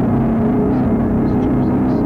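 Ambient drone music: a steady, unbroken wash of sustained tones, heavy in the low end.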